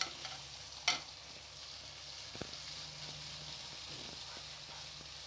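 Chicken pieces, tomatoes and spices sizzling in a frying pan while a metal slotted spatula stirs them. Two sharp metal clinks, one at the start and one about a second in.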